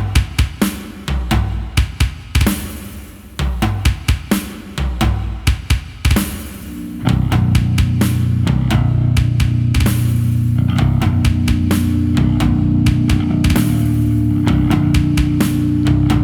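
Death metal band recording: drum kit kicks in with sparse, heavy accented hits and stops for about seven seconds, then the full band with distorted guitar, bass and drums crashes into a dense, steady riff.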